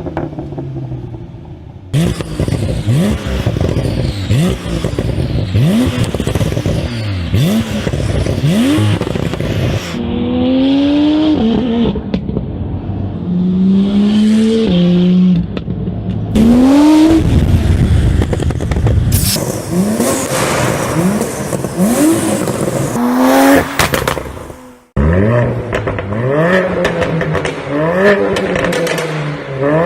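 High-performance car engines revved in repeated short blips, each rise in revs followed by exhaust pops and crackles as the revs drop. Several different cars follow one another with abrupt changes between them.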